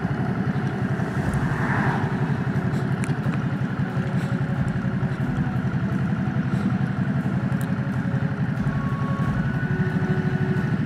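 Motorcycle engine running steadily as the bike is ridden along the road.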